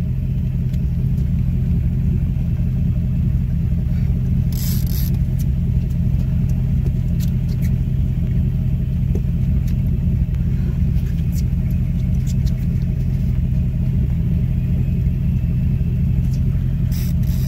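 Boat motor running steadily with a constant low rumble. Two short hissing noises come about four seconds in and near the end.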